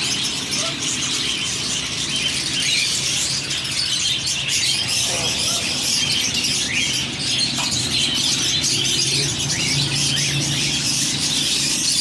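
Many caged pet birds chirping and twittering at once, a dense, unbroken chorus of small high calls.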